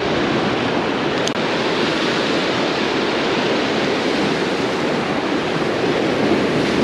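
Ocean surf breaking and washing over the boulders of a rock jetty: a steady rush of water.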